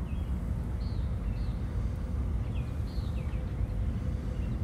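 Outdoor ambience: a steady low wind rumble on the microphone, with several short bird chirps scattered throughout.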